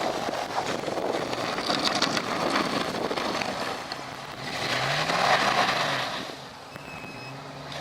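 Chevy plow truck's engine running under a steady rushing noise. The engine revs up and eases back down about five seconds in.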